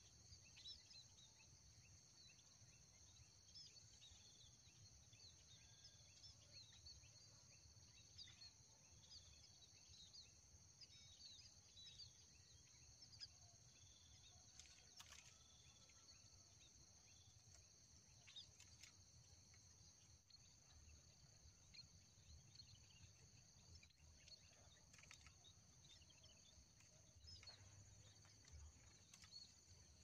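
Faint outdoor ambience: a steady high insect drone with many short, scattered chirps of small birds, over a low rumble.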